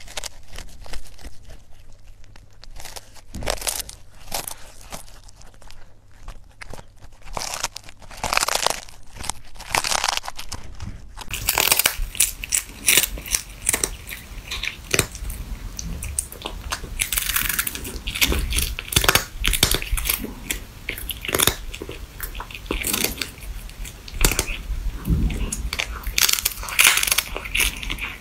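Cats chewing and crunching whole small fish close to the microphone, a fast irregular run of wet bites and crackling bone crunches. The sound grows fuller and denser from about eleven seconds in.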